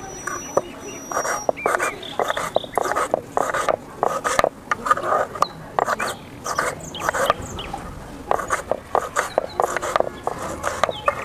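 Kitchen knife cutting a tomato on a wooden board, the blade striking the board in many quick, irregular taps, with a dog giving repeated short calls throughout.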